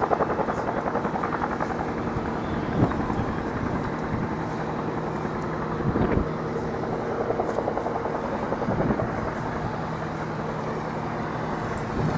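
Helicopter running steadily: an even, fast rotor beat over a steady turbine hum. A brief louder bump about three seconds in.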